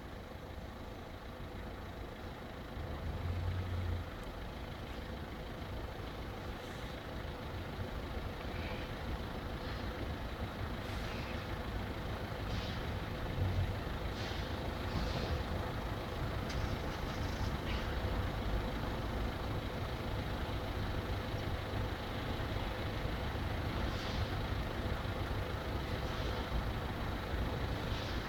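Steady low engine and traffic rumble, slowly getting louder, with a brief low swell about three seconds in.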